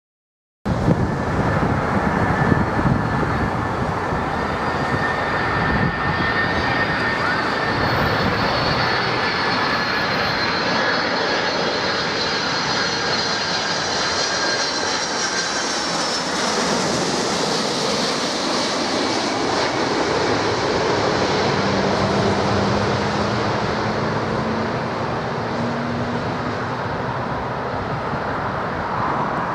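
Boeing 747-400's four jet engines on a low landing approach, a loud steady rush of engine noise with high whines that slowly fall in pitch as the airliner passes over and descends to the runway.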